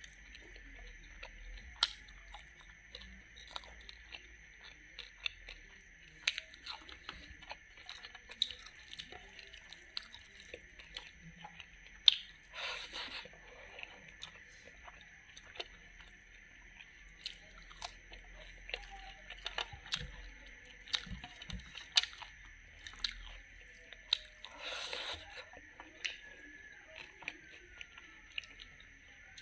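Close-miked mouth sounds of a person chewing rice and wood larvae eaten by hand: many wet clicks and smacks with occasional crunches, over a faint steady hiss.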